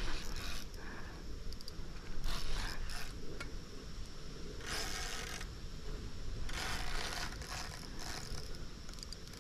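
Spinning fishing reel clicking in about four short spells while a hooked chinook salmon is being played in. The fish is tiring near the end of the fight.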